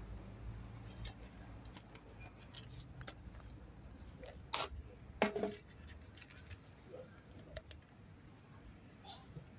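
A tabby cat crunching dry kibble: a scatter of small crisp clicks, with two louder clicks about halfway through.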